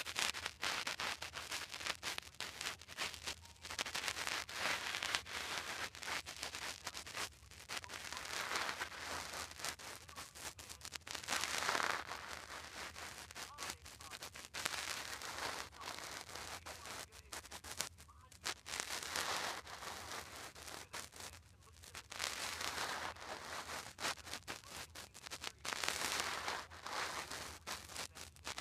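Heavy crackling, hissing noise that swells and fades every second or so, with only a faint trace of voice: a narrated video playing from a handheld phone's speaker, picked up badly distorted.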